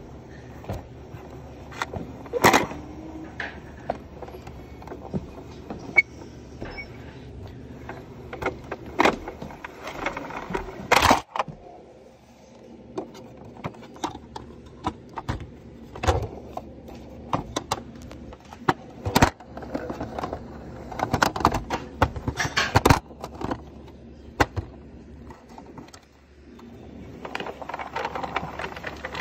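Irregular plastic clicks, knocks and rattles of a small toy vehicle being handled and moved about, with a few sharper knocks standing out.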